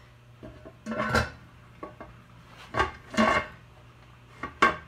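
Heavy metal lid being set onto a pressure canner: a few metallic clanks and knocks, each with a brief ring, as the lid is lowered and seated on the pot.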